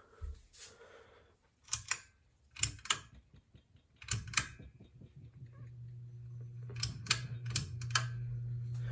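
A series of sharp clicks, then from about four seconds in a low steady hum from a 30-inch Harbor Breeze Breezeway ceiling fan's motor, growing louder as the fan starts up and gathers speed. A few more clicks come over the hum.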